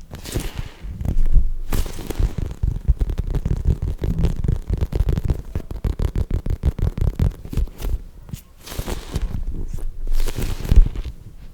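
Squishy foam toys squeezed and rubbed close to the microphone. There is a rapid run of soft, low thumps, several a second, through the middle, with rustling swishes near the start and near the end.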